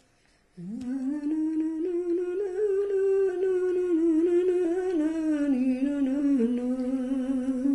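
A woman humming the closing tune of a traditional Tuscan lullaby (ninna nanna), unaccompanied. About half a second in, her voice slides up into one long wordless line that rises, holds and sinks back down near the end.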